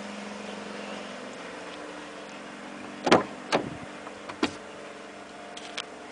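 The Isuzu D-Max pickup's driver's door being opened: a sharp clunk about three seconds in, then two lighter knocks within the next second and a half and a few small clicks near the end, over a low steady hum.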